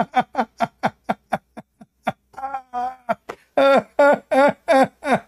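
A man laughing: a long run of short, rhythmic 'ha' pulses, about four or five a second, louder in the second half.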